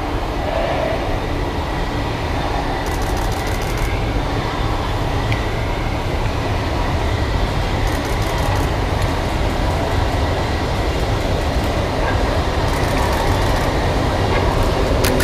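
Hamburg U-Bahn DT 2 electric train pulling into an underground station and slowing along the platform, a steady rumble of wheels and running gear that grows a little louder as it comes closer. Three short spells of fine clicking and rattling come through the rumble.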